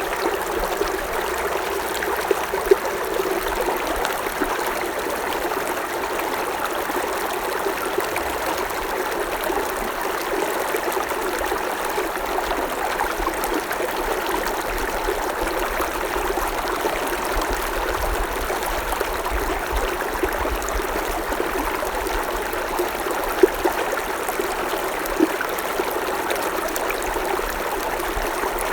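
Creek water flowing and trickling over stones in a steady babble, with a few small splashes standing out near the start and about three quarters of the way through.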